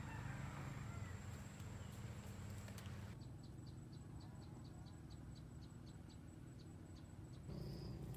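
Insects chirping, with a regular run of short high chirps about four a second through the middle, over a low steady outdoor rumble.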